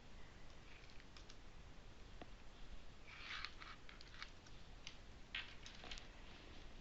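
Faint tapping of computer keys and mouse clicks: a quick run of taps about three seconds in, then scattered single clicks.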